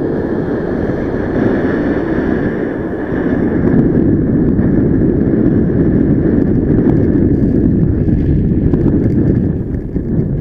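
Wind rushing over the microphone in paragliding flight: a loud, steady, low buffeting noise that grows a little louder about three seconds in, with a faint steady high tone running alongside it.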